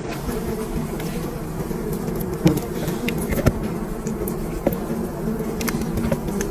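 A dense swarm of honeybees buzzing loudly and steadily around their hive, with scattered sharp ticks through the buzz.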